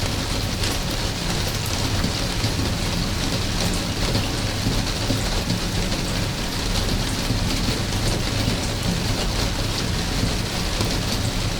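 Steady rain: a dense, even hiss of drops with many fine taps, over a steady low rumble.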